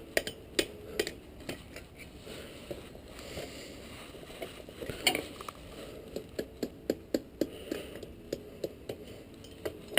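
Light metallic taps of a hammer on steel at the anvil, a few a second in runs with a short ring after each, and one louder knock about five seconds in.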